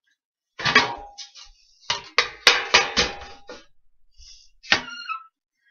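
A metal baking sheet clattering as it is pulled out and handled: a run of sharp knocks and clanks, some with a short metallic ring, then one louder clank with a ringing tail near the end.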